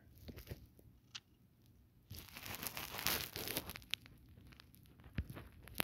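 A burst of rustling and crinkling, about a second and a half long, starting about two seconds in, with a few faint clicks around it.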